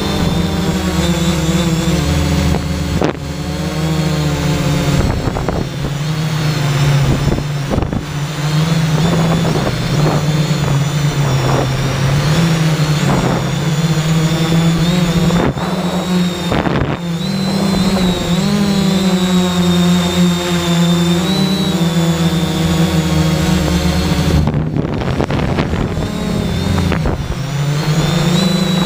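3DR X8 octocopter's eight electric motors and propellers whirring steadily, heard close from on board. The pitch of the hum drifts up and down as the throttle changes.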